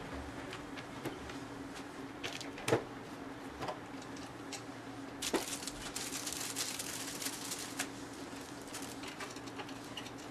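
Light clicks and knocks of a folding aluminium clean-room hood frame being handled and set in place, over a steady low hum. About halfway through, a rustle lasting a couple of seconds.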